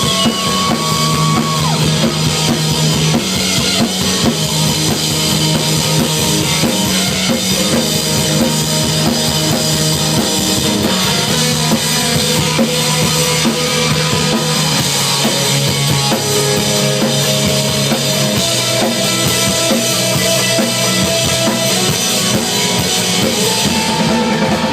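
Live rock band playing an instrumental break between sung sections, with a full drum kit driving it on bass drum and snare.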